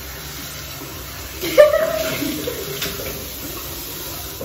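Water running steadily from a bathroom tap, with a short vocal sound from a person about a second and a half in.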